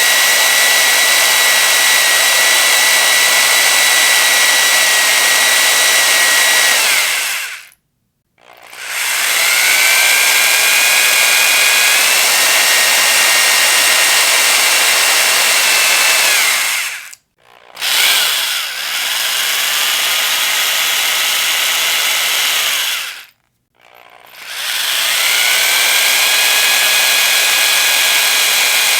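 Electric power drill run four times at full speed for several seconds each, with short pauses between. Each run spins up with a rising whine, holds steady and winds down as the trigger is released.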